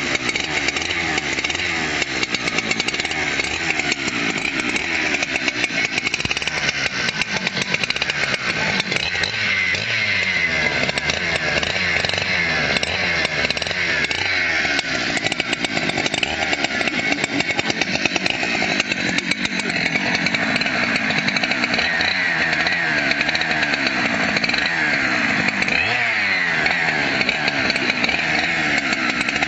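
Husqvarna chainsaw running continuously, its engine speed rising and falling again and again.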